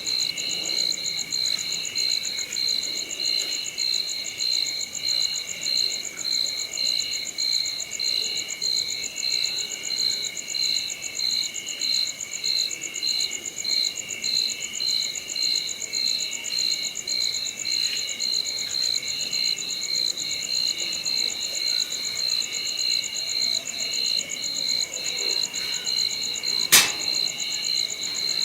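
A chorus of crickets and other night insects chirping, several high trills layered and pulsing in an even rhythm. A single sharp click comes near the end.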